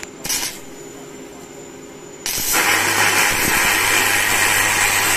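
Stick (MMA) welding arc from a Sanrex MMA-400 Plus DC inverter welder with a 12-gauge electrode on thin steel pipe: after a short tap early on, the arc strikes about two seconds in and then burns steadily and loudly, with a low hum underneath.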